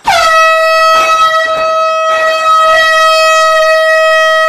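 An air horn goes off the instant a refrigerator door is pulled open, a prank horn rigged to the door. It holds one loud, steady note without a break.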